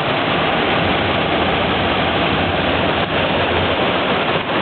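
Torrential rain pouring down, a loud, steady, dense roar of water.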